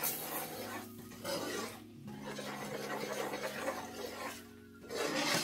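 Metal spoon stirring curry powder as it browns in hot oil, scraping and rubbing against a speckled nonstick skillet, with a light sizzle.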